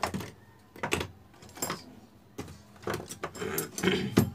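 Sheet-metal top cover of a DVD player being worked loose by hand: a string of sharp clicks, knocks and rattles as it is pulled against the catch at the front, the loudest knock near the end.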